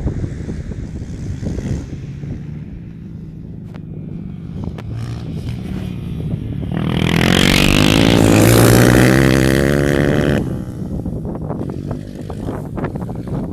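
Single-cylinder four-stroke trail motorcycle engine running and coming close, loudest for about three seconds past the middle with its pitch wavering as the throttle moves, then dropping away sharply. Wind buffets the microphone around it.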